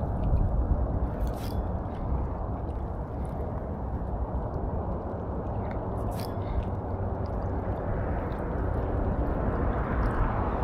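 Wind rushing and buffeting against an open-air microphone, a steady low rush that swells and dips, with two faint clicks.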